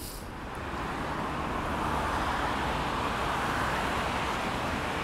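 Road traffic going by: a steady rush of tyre and engine noise that swells about a second in and then holds.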